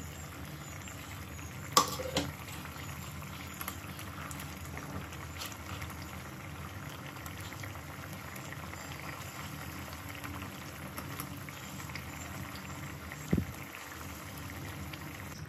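Tomato-onion curry gravy simmering in a steel kadai, a steady bubbling with small scattered pops. A sharp knock comes about two seconds in and another near the end.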